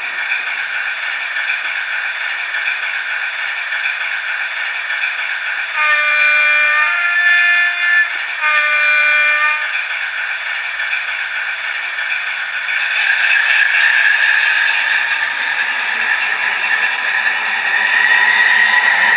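Hornby Class 60 model locomotive's DCC sound decoder playing a diesel engine sound through its small onboard speaker, thin and with little bass. A few seconds in, the horn sounds three held notes (low, high, low). Later the engine note rises as if the locomotive is powering up.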